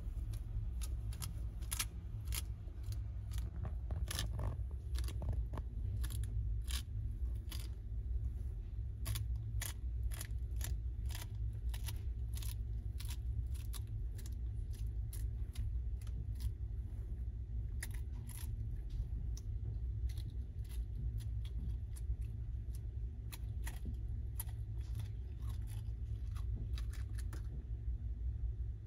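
Yellow-headed water monitor crunching quail eggs, the shells cracking in sharp, irregular clicks that come thick and fast and thin out near the end, over a steady low hum.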